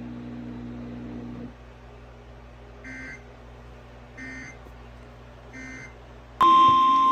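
Emergency Alert System data bursts: a low hum that stops after about a second and a half, then three short, faint end-of-message code bursts about a second and a half apart. About six seconds in, a loud steady NOAA Weather Radio 1050 Hz alert tone starts with hiss behind it; this is the tone that heralds a warning.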